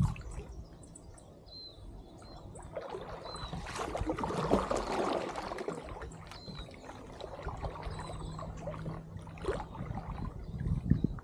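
Kayak paddle strokes in the water: the blade dipping and splashing, with water trickling and dripping off it. The splashing swells to its loudest about four to five seconds in.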